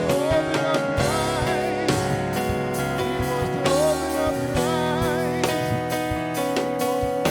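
Gospel music played live by a band, with guitar and drum kit, and a singing voice with wavering vibrato.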